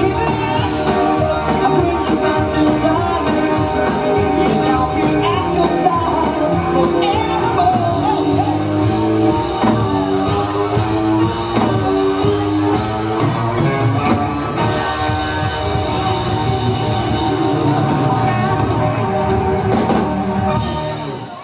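Live rock music with a singing voice and a drum kit, played at a steady loud level; it stops abruptly near the end.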